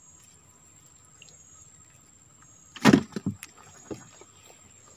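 Knocks and rattles of gear handled aboard a small boat: one sharp knock about three seconds in, then a few lighter knocks.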